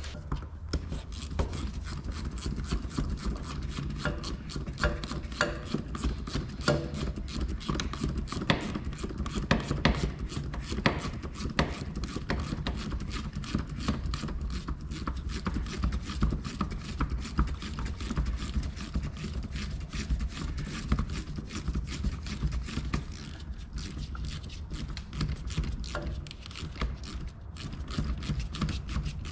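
Hand ratchet wrench clicking in quick runs as a fastener is turned, with light metal clinks.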